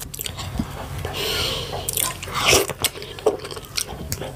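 Close-miked eating of fufu with slimy ogbono and ewedu soup: a string of short wet mouth clicks and smacks from chewing, with a longer wet noisy stretch about a second in.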